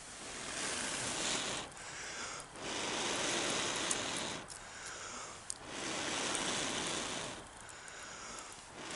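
A person blowing hard on a glowing ember set in a wooden spoon blank to burn out the bowl, close to the microphone. The breathy rush comes in long blows of one to two seconds, over and over, with short pauses for breath between them.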